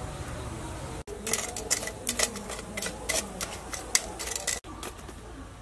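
Glowing wood charcoal in a clay stove being raked and broken up with a stick: a quick run of sharp clinks and crackles for about three seconds.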